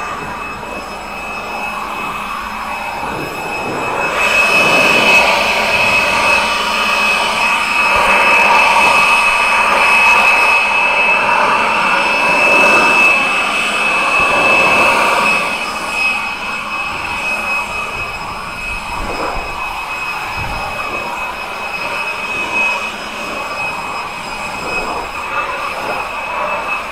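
A machine running steadily with a high whine, louder for about ten seconds in the middle.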